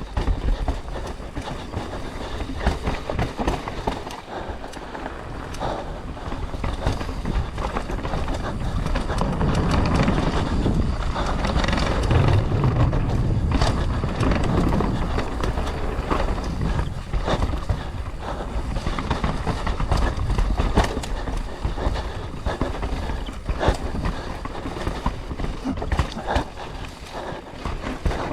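Mountain bike clattering over rough trail: tyres, chain and frame rattling over rocks and roots in a continuous noisy rumble full of sharp clicks, heavier in the middle, with wind on the microphone.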